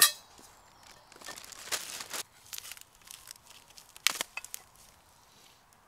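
Clear plastic bag packaging crinkling and tearing as it is pulled off aluminium mill parts, in scattered crackly bursts. A sharp click at the very start and another about four seconds in.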